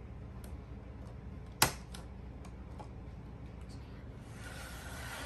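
Plastic LEGO bricks clicking and knocking as the roof section of a LEGO Medieval Blacksmith model is handled and lifted off, with one sharp click about one and a half seconds in. A soft rustling noise near the end.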